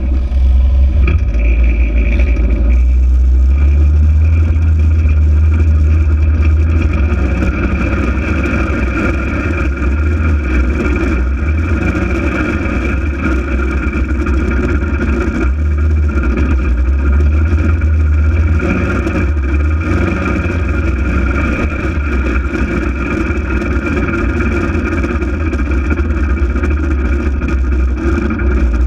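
Polaris RZR 800 side-by-side's twin-cylinder engine running steadily under way, with a constant low rumble.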